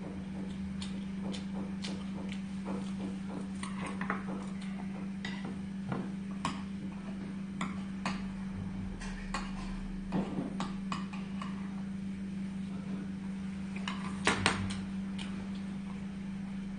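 Metal chopsticks clicking and tapping against dishes in scattered light strikes, with a louder cluster of clicks about 14 seconds in, over a steady low hum.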